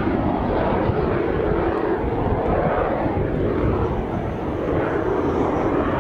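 Soko G-2 Galeb jet trainer's Rolls-Royce Viper turbojet at takeoff power through the takeoff roll and lift-off: a steady, loud rushing jet noise.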